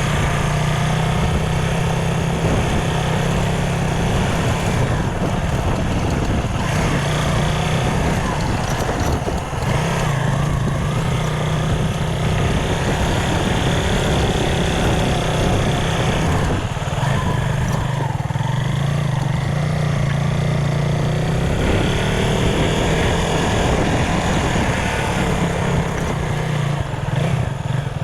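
Honda Tornado 250's single-cylinder four-stroke engine running while the motorcycle is ridden. The engine note eases off and comes back several times.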